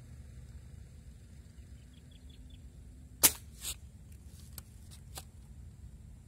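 An air rifle fires once, a sharp crack about three seconds in, followed by a weaker crack about half a second later and two faint clicks, over a low steady wind rumble.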